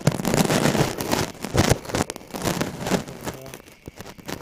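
Dense crackling and rubbing noise close to the microphone, full of sharp clicks, as from handling of the recording device; it eases off near the end.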